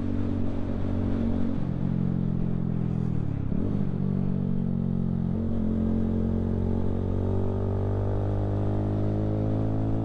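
Keeway Superlight 125cc motorcycle engine under way. Its note steps about a second and a half in and dips and picks up again about three and a half seconds in, as with gear changes, then the revs climb steadily through the second half.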